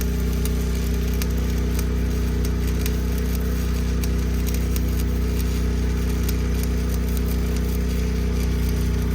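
Engine-driven welder running with a steady drone, over the irregular crackle of a stick-welding arc tacking a steel pipe flange.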